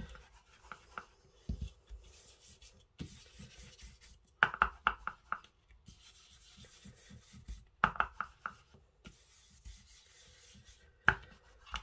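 Foam ink-blending tool scrubbed over cardstock in runs of short, quick strokes, with two louder bursts about four and eight seconds in and a sharp tap near the end.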